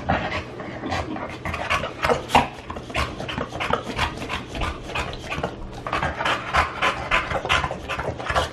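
Boxer dog panting fast and steadily, about three breaths a second. He is worn out and hot after a long walk in the heat.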